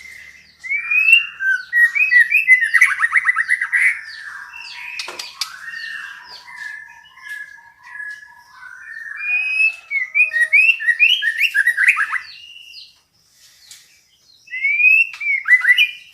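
Female white-rumped shama calling: fast, varied whistled notes and rapid trills in long bursts. There is a short pause before a final phrase near the end. This is the kind of female call used as a lure to set male shamas singing.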